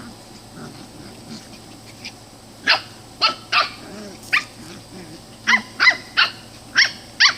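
Dachshund puppies play-fighting: low growls at first, then from about a third of the way in a run of about nine short, high-pitched yips in quick bunches.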